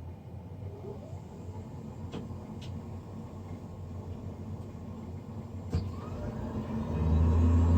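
Navien NCB-240 combi boiler's combustion fan spinning up: a low hum, with a few faint clicks, that rises in pitch and turns suddenly loud and steady about seven seconds in.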